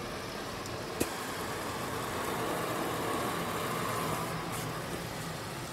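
Ryko automatic car wash running, heard from inside the car: a steady wash of spray and machine noise that grows a little louder in the middle, with one sharp click about a second in.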